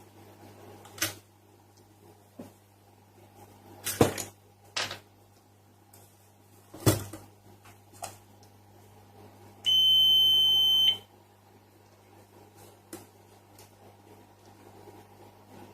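A few sharp clicks and taps, then one steady high-pitched electronic beep lasting just over a second, over a steady electrical hum.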